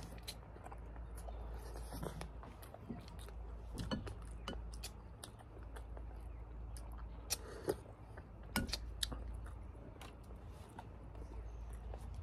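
People eating a meal: chewing, with scattered light clicks and taps over a low steady hum.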